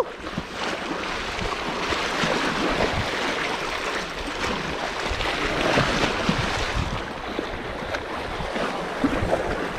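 Sea water lapping and splashing at the shore: an even wash of water noise broken by small, irregular splashes.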